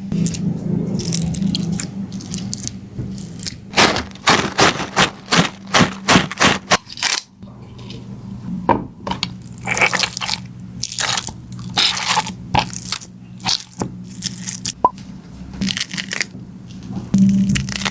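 A squishy stress ball filled with water beads being squeezed and kneaded by hand, giving quick crackling, crunchy squelches in irregular runs, densest about four to seven seconds in.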